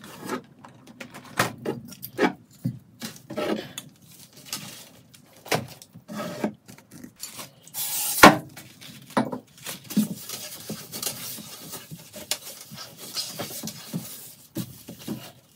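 Toiletry bottles, aerosol cans and a plastic basket being lifted off a cabinet shelf and set down: an irregular run of knocks, clinks and rattles, the loudest knock about eight seconds in.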